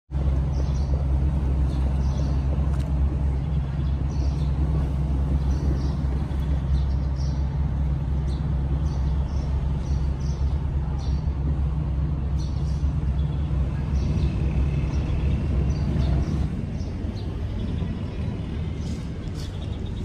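Steady low rumble of a nearby idling vehicle engine, which drops away about three-quarters of the way through, with faint short high ticks scattered above it.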